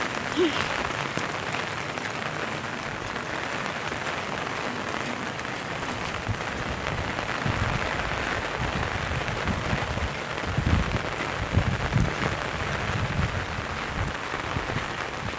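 Steady rain falling, a continuous even hiss, with irregular low rumbling thumps joining in from about six seconds in.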